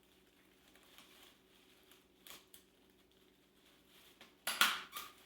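Faint rustling of tissue paper being handled, then a loud, short snap about four and a half seconds in, a stapler being pressed into the paper.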